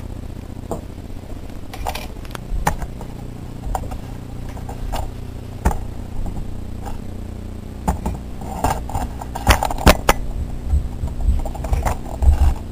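Handling noise from a handheld camera and small objects being moved: scattered light clicks and knocks, more frequent in the second half, over a steady low hum.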